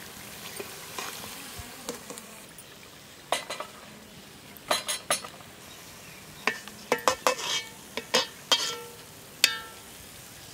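Oil sizzling steadily as rava kachayam fritters deep-fry in an aluminium pot. A metal ladle clinks and rings sharply against the pot and a steel plate about a dozen times from a few seconds in, as the fried fritters are scooped out.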